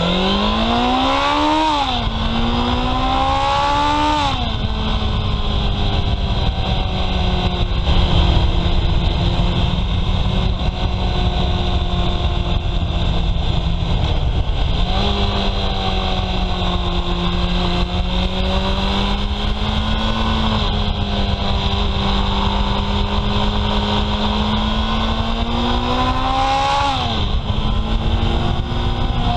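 Honda CB750 Sevenfifty's 747 cc four-cylinder engine on its stock exhaust, heard from on the bike under way. It revs up through two quick upshifts in the first few seconds, then runs at steady revs for a long stretch with small changes of throttle, and pulls up again to another upshift near the end.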